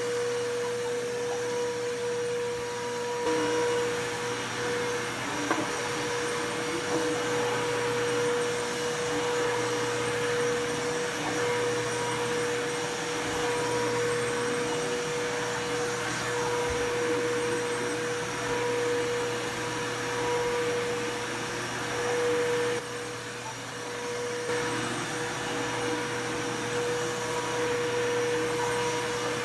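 Bissell PowerForce Bagless upright vacuum cleaner running steadily during vacuuming: a steady motor whine over the rush of air. It turns briefly quieter about three quarters of the way through.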